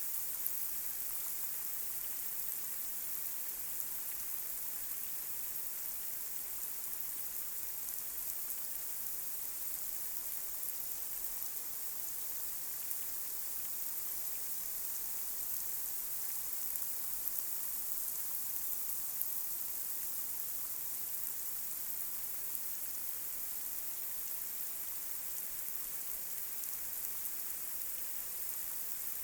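Light rain falling on a street: a steady hiss with scattered raindrop ticks.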